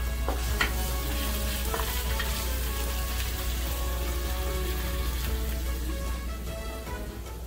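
Food sizzling in a hot pan as it is stir-fried, with a few sharp clicks of a utensil against the pan in the first two seconds. The sizzle eases a little near the end.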